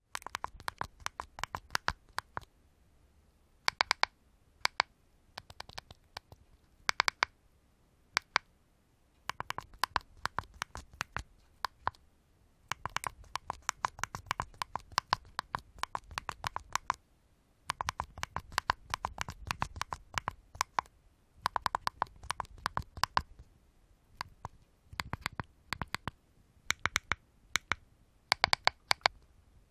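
Cordless phone keypad buttons pressed in quick runs of clicks, the runs separated by short pauses, with low handling rumble from the handset under some of them.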